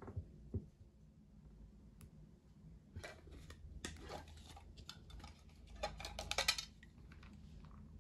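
Small hard objects being handled on a tabletop: two soft knocks at the start, then a run of clicks, clinks and rustling from about three seconds in, busiest and loudest near six seconds.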